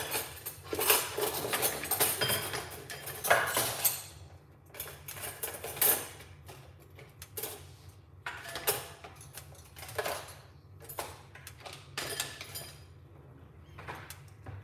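Kitchen clatter: dishes and utensils clinking and knocking, busy for the first few seconds and then scattered, with a steady low hum underneath.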